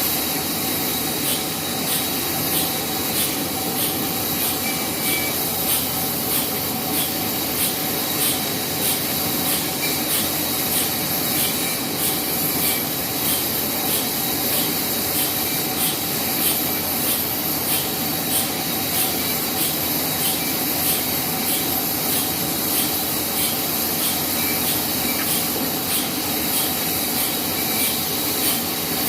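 Sawmill band saw running steadily through a log, with a dense rasping hiss, a steady whine and a regular high ticking about twice a second.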